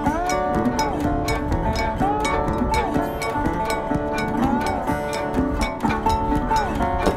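Background music: a plucked-string melody with sliding notes over a steady beat.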